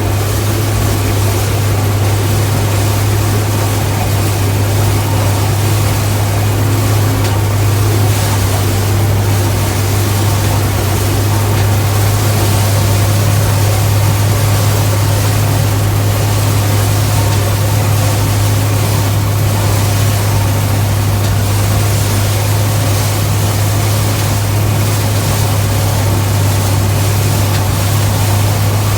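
Gleaner K combine harvester running steadily while harvesting corn: a loud, even low drone that does not change.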